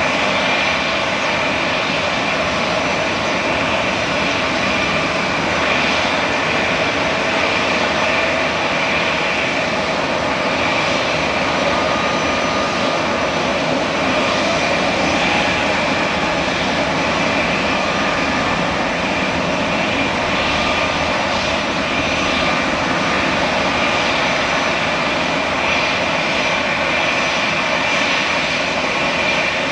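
Airbus A320neo jet engines running with a steady, loud jet noise and a high whine held throughout.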